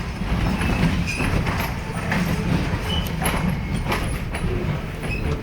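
Railroad passenger car rolling along the track: a steady low rumble with irregular clicks and knocks from the wheels on the rails.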